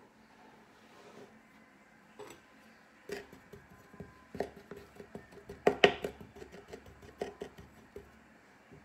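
Hands working kinetic sand on a wooden tabletop: an irregular run of light taps and clicks that starts about three seconds in, grows loudest in a quick cluster near the middle, and dies away about a second before the end.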